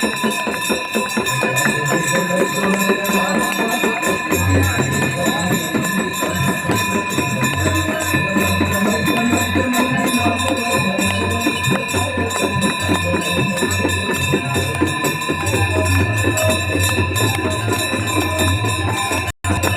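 Aarti music: many bells ringing without pause, with dense jangling metal percussion and a steady low tone underneath. The sound drops out for an instant near the end.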